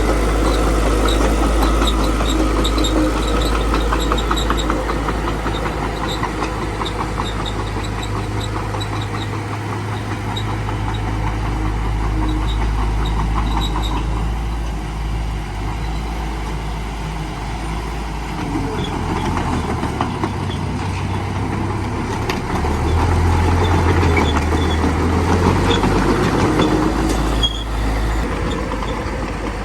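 Small bulldozer's diesel engine running steadily. Its low note shifts partway through and it grows louder for a few seconds about three-quarters of the way in as it works.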